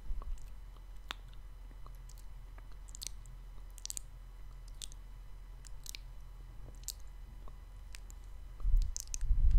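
Close-miked ASMR mouth sounds: scattered wet tongue clicks and lip smacks, several a second at irregular spacing. A louder low muffled rumble starts near the end.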